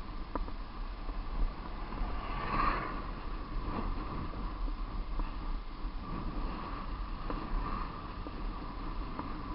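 Steady wind and road noise from a moving vehicle travelling downhill, heard on its mounted camera, with a constant hum and a brief swell about two and a half seconds in.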